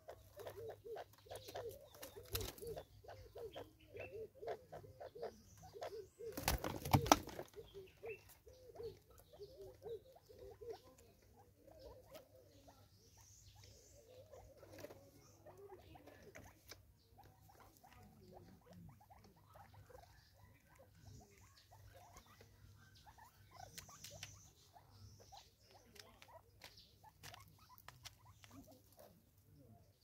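Spurfowl and a ground squirrel feeding on seed on a wooden log, heard as many light taps, pecks and scratches, with a louder burst of scuffling about six and a half seconds in.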